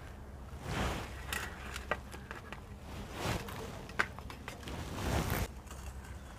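Quiet handling sounds: vegetables being moved and dropped into stainless steel bowls and plates, soft rustles with light clicks, the sharpest click about four seconds in.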